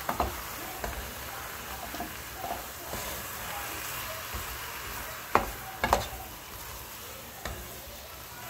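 Ground venison and potato chunks sizzling in a nonstick pot as they brown, stirred with a wooden spoon, with small scraping clicks. Two sharp knocks of the spoon against the pot come about five and six seconds in.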